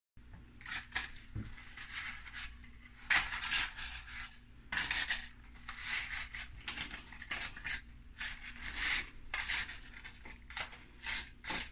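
Paper muffin liners rustling and crinkling as they are pulled apart and pressed into a metal muffin tin, in a string of short crackly bursts.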